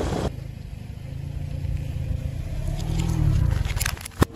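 Car tyre rolling slowly onto a row of small orange juice cartons: a low rumble that grows louder as the car creeps forward, then a few sharp pops near the end as the cartons burst under the tyre.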